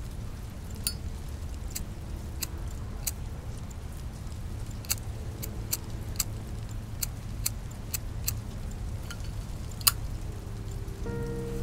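A cigarette lighter being struck again and again: a dozen or so sharp, irregular clicks over a steady low rumble, the loudest click near the end.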